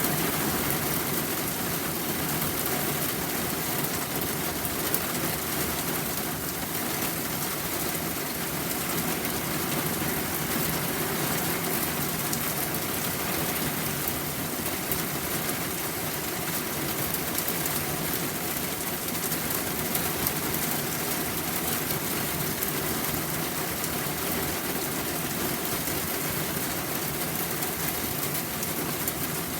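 Steady rain falling: a continuous hiss of many drops, with no change in strength.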